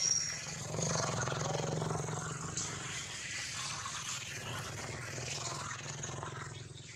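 Steady low hum under indistinct background noise, with a brief high chirp at the very start.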